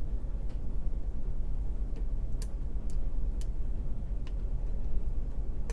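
A few faint, sparse metallic ticks of a lock pick working the pins of a pin-tumbler lock during single-pin picking, over a steady low hum.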